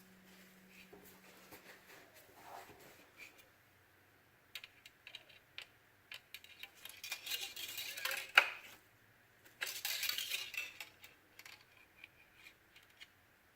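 Scattered light metallic clicks and clinks of tools or parts being handled, with two short scraping rustles and one loud sharp clank about eight seconds in.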